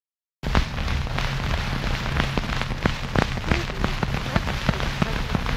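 Playback of the unrestored 1888 Edison wax-coated cardboard cylinder: a dense hiss full of crackles and pops over a low hum, starting suddenly about half a second in. It is the surface noise of the worn cylinder, heavy enough to bury the recording.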